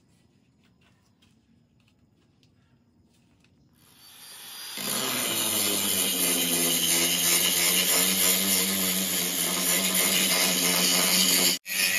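Near silence at first. About four seconds in, an electric angle grinder with an abrasive disc comes in, rising over about a second to a steady, loud grinding against the steel axe head. It cuts out for an instant near the end, then carries on.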